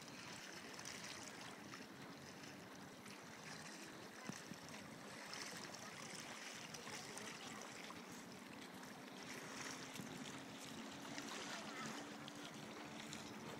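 Faint lakeside ambience: water lapping among the pier's rocks, with light wind. A faint, steady low hum comes in about halfway through.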